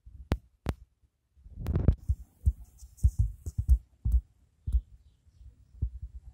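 Handling noise of a phone held close against a cat: irregular low thumps, two sharp clicks in the first second and a brief rustle about two seconds in.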